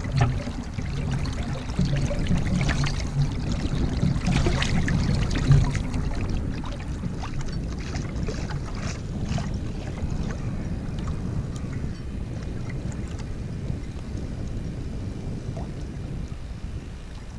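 Wind rumbling on the microphone over choppy water lapping and splashing. The sharper splashes come thickest in the first half, with one louder slap about five and a half seconds in.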